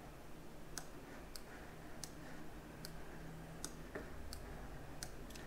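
Faint computer mouse clicks, about eight single clicks spaced under a second apart.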